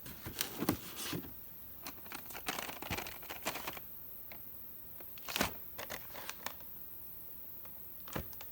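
Handling noises: irregular crinkling and light knocks, as of firework packages being picked up and moved about, with one sharper knock about five and a half seconds in.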